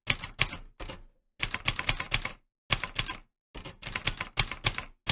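Typewriter typing sound effect: several runs of rapid key clacks separated by short pauses, timed to on-screen text being typed out line by line.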